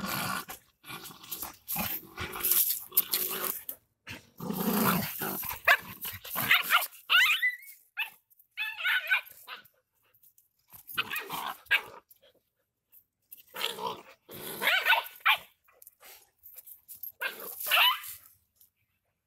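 Rottweilers, an adult and a puppy, play-fighting: growling and barking in short bursts with brief pauses between.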